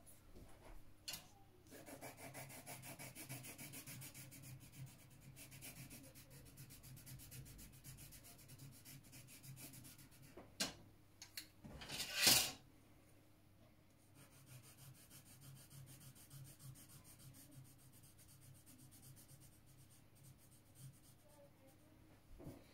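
Coloured pencil shading on drawing paper: fast, even back-and-forth rubbing strokes in two long stretches. A short, louder scrape a little past halfway is the loudest moment.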